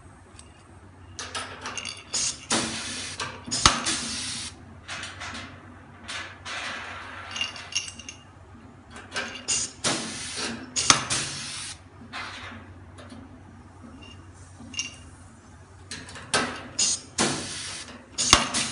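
Air-hydraulic blind rivet gun setting rivets into steel shelving: repeated bursts of compressed-air hiss as the tool cycles, with a sharp snap three times as a rivet's mandrel breaks off.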